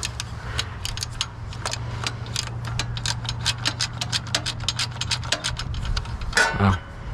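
Ratchet wrench clicking rapidly as a carburetor mounting bolt is backed out, over a steady low hum.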